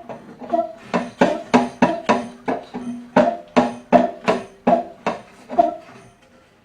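Background music: sharp percussive, pitched notes in a steady beat, about three a second.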